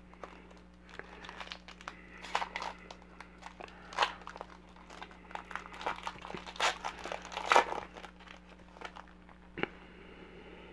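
Foil wrapper of a trading-card pack being torn open and crinkled by hand, in irregular crackles and sharp rips that are loudest about four seconds in and again about seven and a half seconds in.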